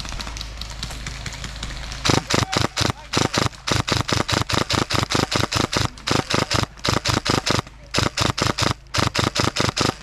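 Airsoft gun firing rapid shots, about five a second, in long strings broken by short pauses, starting about two seconds in.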